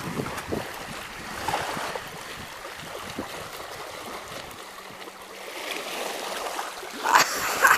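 Small waves lapping and splashing over the stones at the water's edge, with wind on the microphone; a louder splash about seven seconds in.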